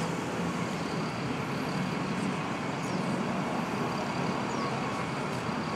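Steady road traffic noise: an even hum of passing and idling vehicles, with no single event standing out.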